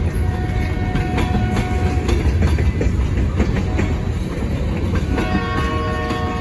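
Railroad tank cars of a freight train rolling past, their steel wheels rumbling and clicking over the rail joints. A thin steady tone sounds for the first two seconds, and several overlapping tones come in near the end.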